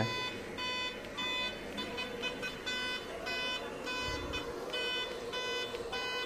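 Revolt RV400 electric motorcycle's anti-theft alarm siren going off, a steady run of short electronic beeps repeating evenly. It sets itself off while the bike is locked and on charge, and the owner does not know why.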